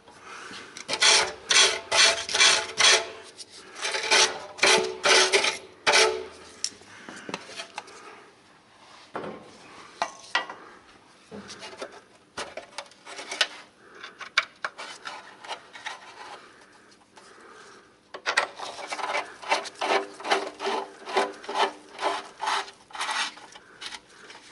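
Repeated rasping, scraping strokes, a few per second, in two runs: one over the first several seconds and another from near the end, with scattered strokes between.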